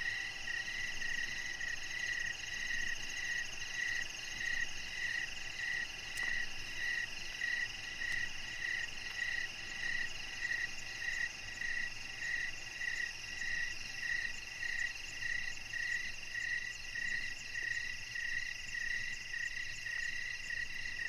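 Evening animal chorus: a short high call repeated evenly, a little more than once a second, over a steady high trill.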